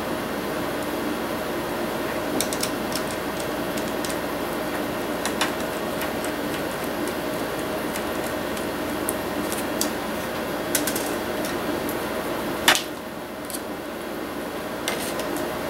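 Small clicks and taps of hands and a screwdriver handling a bare laptop LCD panel and its metal side brackets, one sharper click near the end, over a steady background hum.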